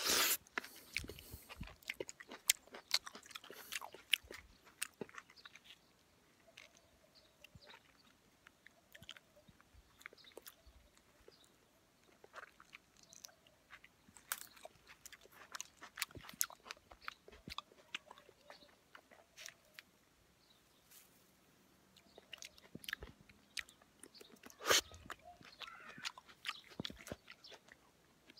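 Close-up chewing of ripe plums: irregular wet mouth clicks and smacks, with a sharp bite at the start and another loud bite-like sound about 25 seconds in.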